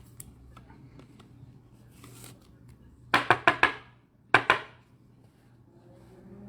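Cards and packaging being handled on a table: light rustling and clicks, then a quick run of five sharp taps about three seconds in and a single tap a second later.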